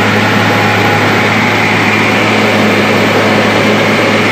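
Engine of a camouflage-painted, military-style truck running steadily, a constant low hum that holds one pitch, heard from the open cab as the vehicle moves.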